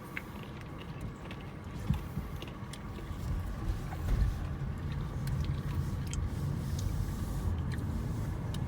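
Steady low rumble of a car cabin with the engine running, with scattered light clicks and taps from spooning and eating a Blizzard out of its cup.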